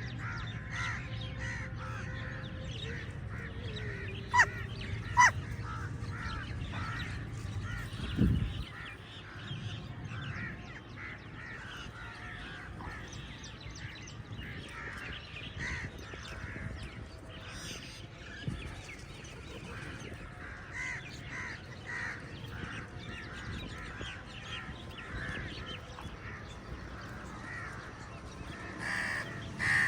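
A flock of crows cawing, with many short calls overlapping throughout. Two loud, sharp calls stand out about four and five seconds in. A low background rumble ends with a thump about eight seconds in.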